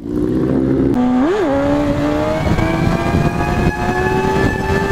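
Sport bike engine and exhaust running under throttle at speed, with a quick rise and fall in pitch about a second in and then a slow, steady climb in pitch as the bike accelerates.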